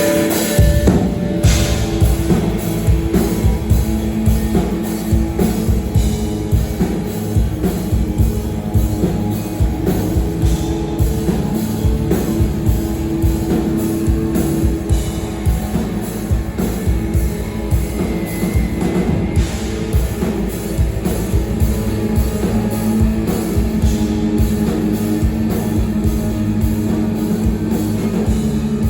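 Rock band playing live and loud: a drum kit pounding out a dense beat under sustained guitar.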